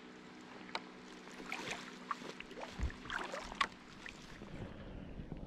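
Faint water sounds from a sea kayak on flat calm water: light paddle splashes and drips, with scattered small knocks and one dull thump near the middle.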